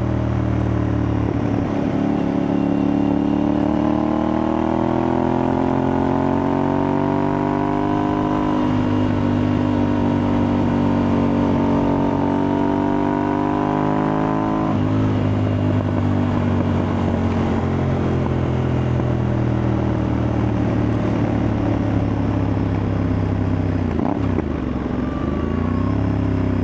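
Aprilia Tuareg 660's parallel-twin engine through a replica Akrapovic exhaust, pulling under load. The engine note rises over the first several seconds and then holds steady. It drops suddenly about halfway through and runs lower after that, with a brief dip and rise again near the end.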